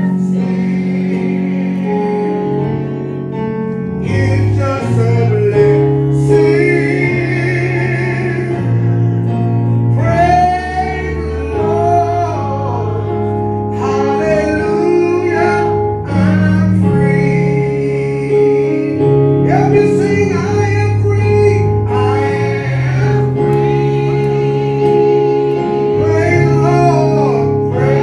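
A gospel song: a solo voice singing with strong vibrato over sustained, slowly changing chords.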